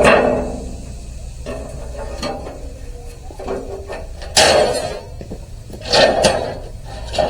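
A few knocks and clattering rattles, the loudest about four and a half seconds in and again about six seconds in, like objects being handled or a door being moved.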